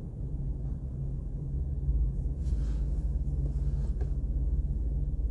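Steady low background rumble with a low hum, a little louder from about two seconds in, with a couple of faint brief hisses.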